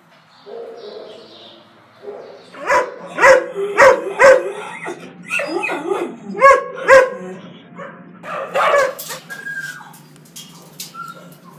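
Dogs in shelter kennels barking: a run of short, sharp barks from about two and a half seconds in, then a few more near the end.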